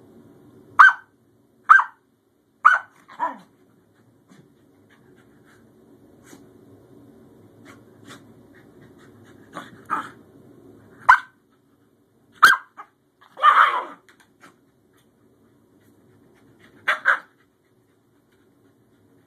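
Scottish terriers barking in short, sharp yaps spread out with pauses. There are four quick barks at the start, a cluster about halfway through with one longer, rougher bark, and a quick double bark near the end.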